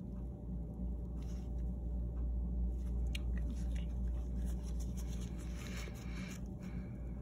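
Steady low hum with scattered light clicks, and about a second and a half of soft hissing noise near the end.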